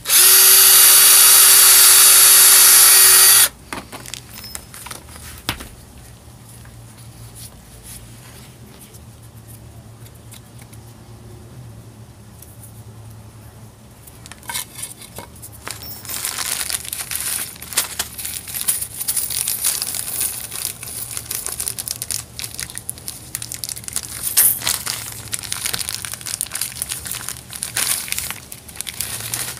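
Cordless drill running at a steady whine for about three and a half seconds as a wood bit bores through a leather strap, then stopping abruptly. From about halfway on, a plastic bag of brass rivets crinkles as it is handled and opened.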